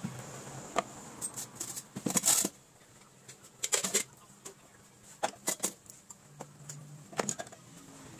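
Handling noise from metal items being set into a plywood camp kitchen box: a string of knocks and clicks with short scraping bursts, the loudest about two seconds in.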